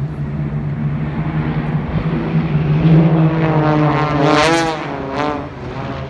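Engines of a formation of small aerobatic planes droning overhead, growing louder about halfway through with a pitch that wavers up and down, then fading near the end.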